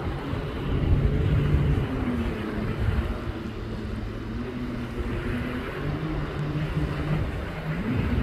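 A motorboat engine running with a droning pitch that wavers and rises briefly near the end, over a steady hiss of wind and water.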